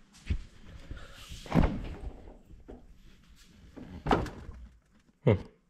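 Refrigerator door opened and things handled on its shelves: a handful of separate knocks and thuds from the door and from containers being moved.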